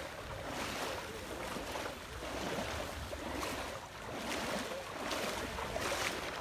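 Footsteps wading through shin-deep floodwater, the water sloshing and splashing with each stride, about one splash a second.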